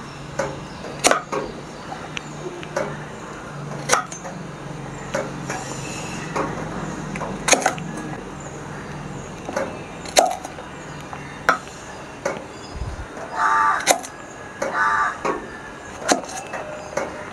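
Kitchen knife cutting the stems off fresh okra: sharp chopping taps at irregular intervals, often a few seconds apart.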